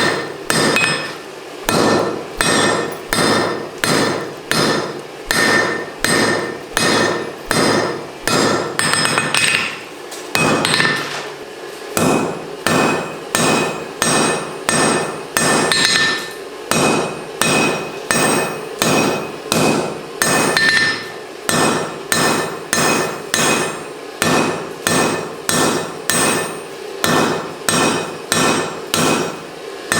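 Hand hammer striking hot mild steel on an anvil in a steady rhythm, about one and a half blows a second, each blow ringing briefly: drawing out the rein of a pair of tongs. There is a short break in the blows about eleven seconds in.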